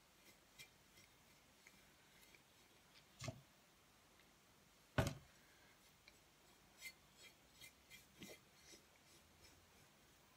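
Near silence with faint scattered ticks and rubbing as a brush spreads glue over a bottle. There are two louder short knocks, about three and five seconds in.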